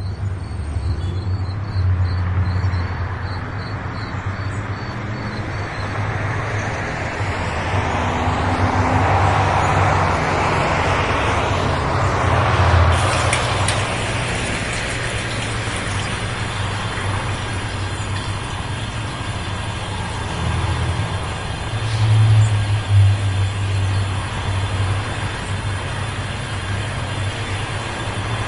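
Steady low rumble of a large vehicle, with a rush of noise that swells and peaks about halfway through.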